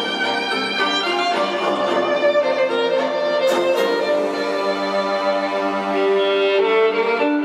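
Violin-led string music, the skater's free-program music, played over an ice rink's sound system with sustained, flowing notes.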